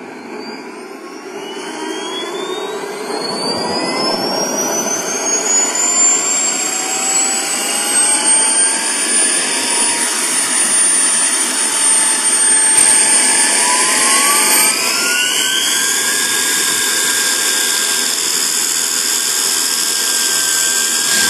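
JetCat model turboprop engine on an RC Pilatus PC-6 spooling up. Its turbine whine rises steadily in pitch and loudness over the first ten seconds, then rises again about fourteen seconds in as the engine is opened up for taxiing.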